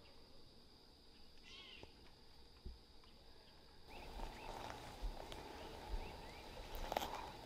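Footsteps crunching and rustling through dry palmetto fronds and undergrowth, starting about four seconds in and growing louder. Before them, a brief high call of a few quick arched notes about a second and a half in, over a faint steady high tone.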